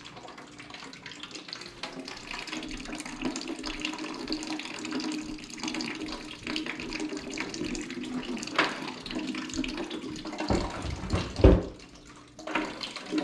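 Water running steadily, with a few sharp knocks about ten to eleven seconds in.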